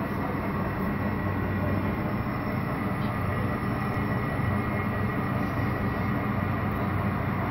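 Model freight train with model ES44AC, SD60 and SD70ACe diesel locomotives in the lead, moving slowly at yard speed. A steady low diesel-like rumble runs with a faint high steady whine over it.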